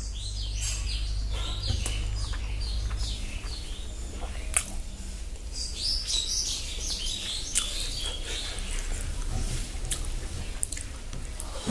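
Small birds chirping repeatedly in the background, over a steady low hum. Scattered light clicks and crackles come from fingers gathering rice on a banana leaf.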